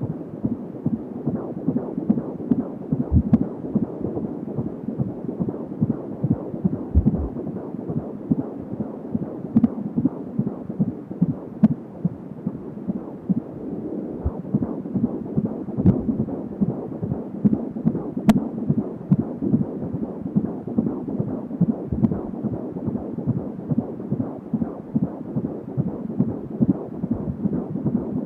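Fetal heartbeat at 16 weeks of pregnancy picked up by a Doppler monitor: a fast, steady run of pulses over a noisy hiss.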